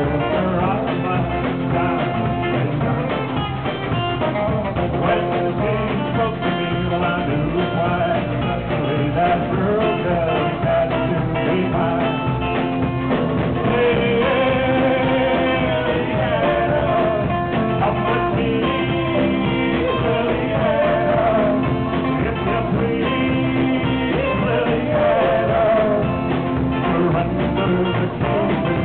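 Live roots-rock band playing a song, with guitar, upright bass and singing.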